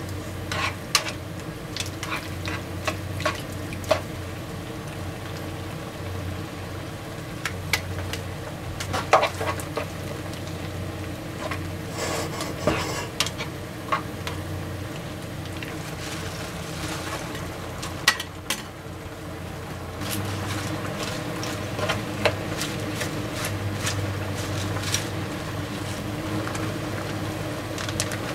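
Tongs stirring and turning vegetables in a simmering cream sauce in a frying pan, with irregular taps and scrapes against the pan over a steady sizzle. A steady low hum runs underneath.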